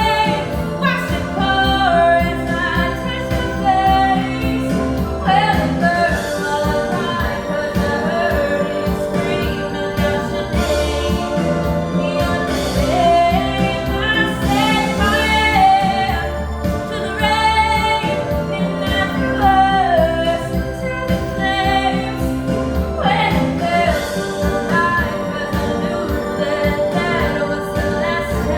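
A song playing, with a singing voice over instrumental backing and a steady beat.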